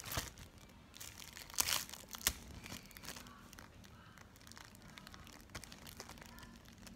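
Thin plastic wrapper on a pack of binder refill paper crinkling and rustling as it is picked open, with two sharper crackles about one and a half and two and a quarter seconds in.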